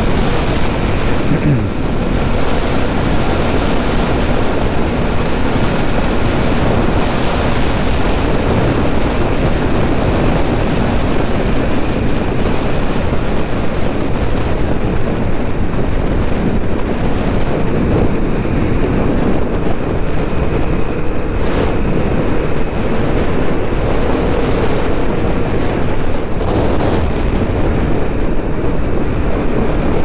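Wind rushing over a motorcycle rider's helmet-mounted microphone while cruising on the open road, with the engine running at a steady pitch underneath.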